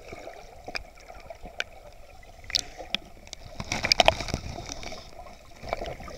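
Water heard from a camera held underwater: muffled sloshing and gurgling with scattered sharp clicks and crackles, which come thick and fast for about a second around four seconds in.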